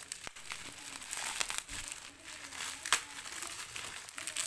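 Plastic packaging crinkling and crackling as a parcel wrapped in plastic and clear tape is handled and unwrapped by hand, with a sharper crackle about three seconds in.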